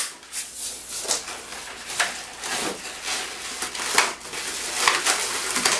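Latex 260 modelling balloons rubbing and squeaking against each other and the hands as they are twisted and handled, in a series of short, irregular rubbing sounds.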